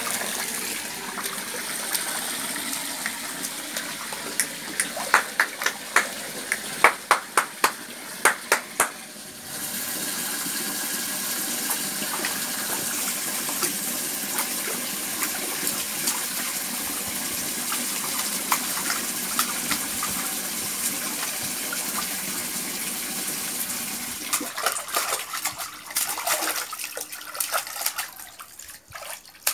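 Water running steadily, as from a hose pipe, while a small child splashes and slaps the water in a plastic tub: a quick run of sharp slaps about five to nine seconds in, and more splashing near the end.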